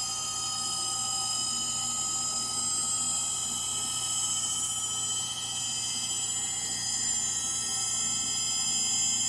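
Frigidaire Gallery GLTF1670AS1 front-load washer in its final spin, running steadily with a high-pitched whine of several tones over a low hum: the sign of bad motor bearings.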